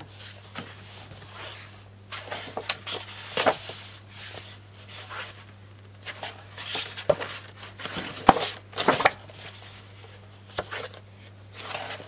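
Large pages of a scrapbook paper pad being turned and sheets of paper handled: irregular rustles and flaps, some sharper than others, over a steady low hum.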